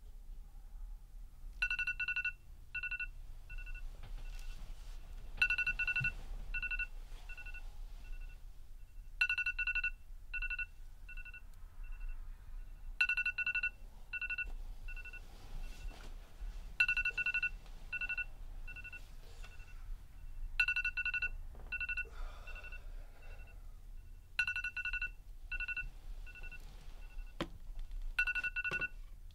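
Smartphone alarm going off: a two-pitch electronic beep pattern, one longer beep followed by a run of shorter, fading beeps, repeating about every four seconds.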